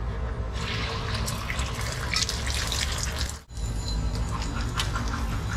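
Chopped onion mixture sizzling and crackling in hot oil on a flat steel griddle, the hiss thickest in the first three seconds. It breaks off for an instant about three and a half seconds in and returns lighter, over a steady low rumble.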